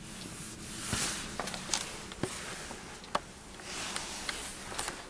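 Camera handling noise: soft rustling with several light clicks and knocks, the sharpest about three seconds in, over a faint steady hum in a small quiet room.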